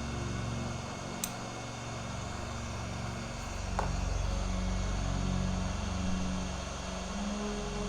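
Fan running steadily with a low hum under it, and two short clicks, one about a second in and one near four seconds in.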